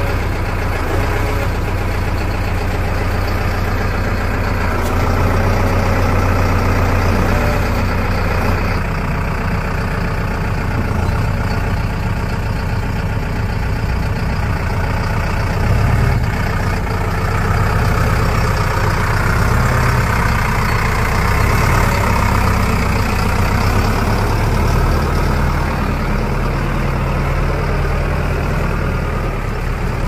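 Heavy diesel engine of construction machinery running continuously, revving up and settling back several times as it works.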